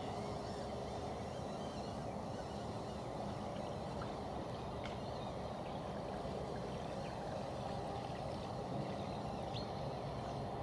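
Steady rushing noise of river water, with a faint click about five seconds in.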